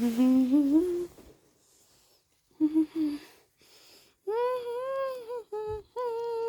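A child's voice humming wordless notes: a rising note at the start, two short notes near the middle, then a longer arching note and a few short ones near the end.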